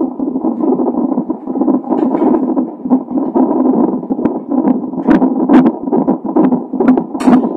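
A baby's heartbeat heard through a Doppler ultrasound monitor: a rapid, rhythmic whooshing pulse, with sharp clicks scattered through the second half.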